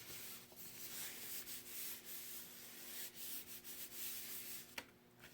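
Hands rubbing and smoothing a freshly glued paper piece down onto card stock, a faint, uneven dry scuffing that stops just before the end with a small tap.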